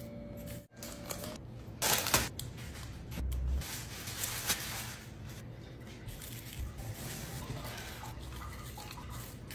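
Soft, wet, crumbly food-handling sounds: crushed butter cream crackers scattered from a wooden spoon and mango slices laid into cream in a glass dish. There is a brief louder rustle about two seconds in.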